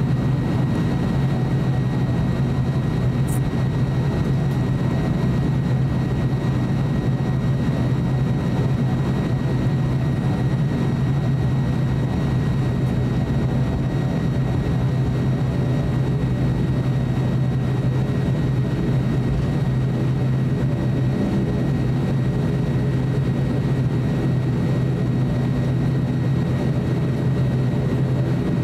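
ATR 42-600 turboprop's Pratt & Whitney Canada PW127 engines and propellers running at taxi power: a steady low drone with a thin, steady high whine over it, heard inside the cabin.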